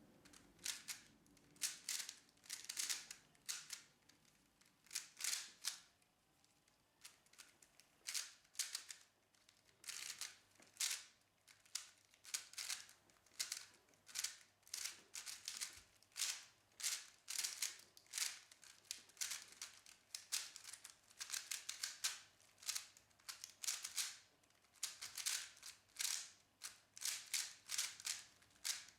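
Rubik's cube being turned fast: quick runs of rattling plastic clicks as the layers snap round, broken by short pauses.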